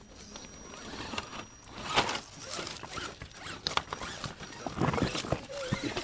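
Radio-controlled rock crawler working over rocks: its small electric motor and gears whirring, with irregular knocks and clatter as the tyres and chassis hit stone.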